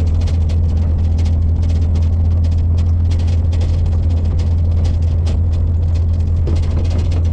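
Daihatsu Feroza 4x4 driving along a rough dirt track: a steady low engine and road drone, with frequent short rattling knocks from the body jolting over the ruts.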